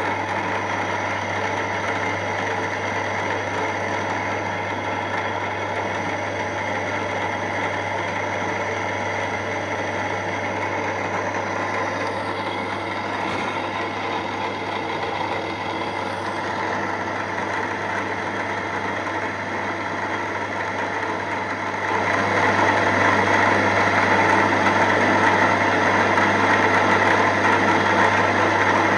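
Milling machine spindle running steadily with a low hum while a 3 mm end mill cuts a small square pocket in a slide valve blank. The sound gets louder about three quarters of the way through.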